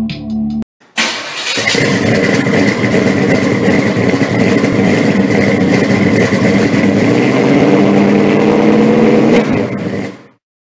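A car engine starts with a sudden burst about a second in and runs loud and steady with a thin high whine over it, then fades out near the end.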